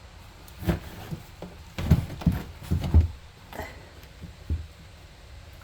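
A series of dull clunks and knocks, heaviest in the middle, as parts and tools are handled while an idler pulley and belt are fitted under a lawn tractor's mower deck.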